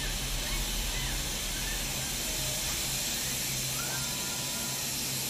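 Robotic car paint booth running: a steady hiss over a low hum, with a few brief rising whines.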